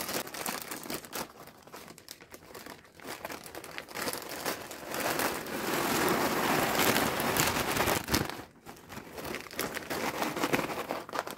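Plastic bags crinkling as a vacuum-sealer bag is opened, then dry ring-shaped cereal poured into it from another plastic bag: a steady pour from about four seconds in, lasting some three seconds, followed by more crinkling and rustling as the cereal is pushed flat in the bag.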